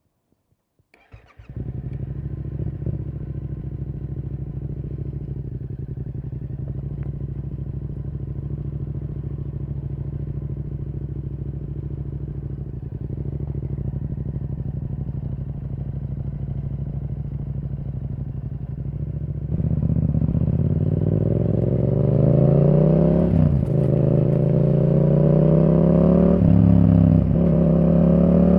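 Yamaha R7's parallel-twin engine through a Yoshimura R77 exhaust. It comes on about a second in and idles steadily. Near two-thirds of the way through the bike pulls away, revving up through the gears with a drop in pitch at each of two upshifts and growing louder.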